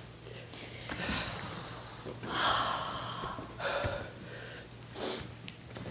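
A woman gasping and breathing hard, a few sharp breathy gasps in a row, the loudest about two seconds in.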